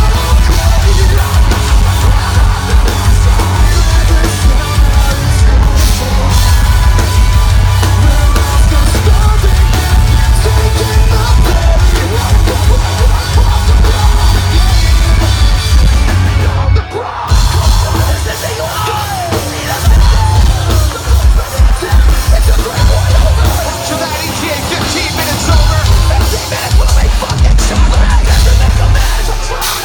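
Metalcore band playing live and loud: pounding drum kit, heavy bass and guitars, with yelled and sung vocals. About halfway through the band cuts out for a moment, then comes back in with choppy, stop-start hits.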